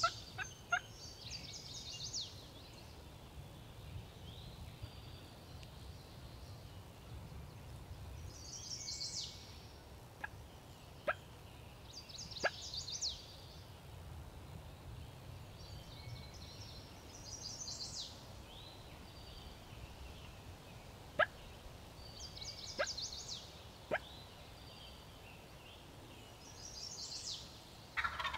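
Spring woods with birds calling: a short, high, rapidly stuttered call repeats about every four to five seconds, with single sharp clucks between. A lower, fuller wild turkey gobble comes at the very end.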